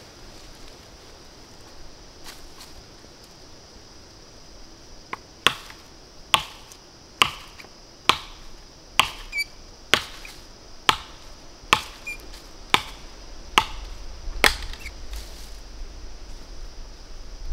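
About a dozen sharp knocks of wood being struck, close to one a second, starting about five seconds in and stopping a few seconds before the end, over a steady high hiss.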